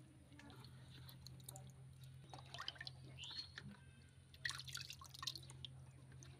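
Faint small splashes and drips of water as hands rinse pieces of snail meat in a bucket, coming in short bursts about two and a half and four and a half seconds in.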